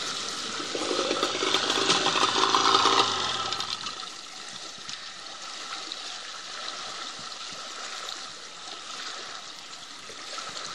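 Floodwater splashing and churning as a man wades through it pushing a small boat. A steady pitched hum, the loudest sound here, runs through the first few seconds and then stops, leaving the water noise.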